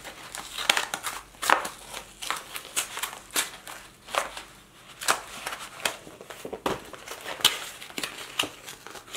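Stiff yellow card mailer being torn and crumpled open by hand, a run of irregular crackles and rips as it resists opening.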